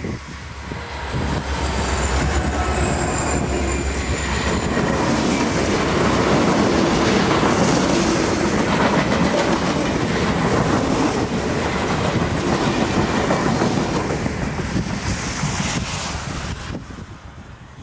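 A diesel-hauled passenger train passing close by. First comes the low rumble of its two diesel locomotives, then the clatter and rush of the passenger cars' wheels on the rails, with a thin high wheel squeal a few seconds in. The sound fades near the end as the last car goes by.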